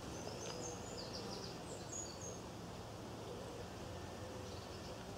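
Outdoor background ambience with a steady low hiss, and small birds giving a few short high chirps in the first half.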